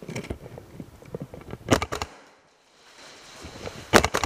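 Gas blowback airsoft gun firing two short, sharp bursts, one about halfway through and one near the end, among lighter clicks and knocks.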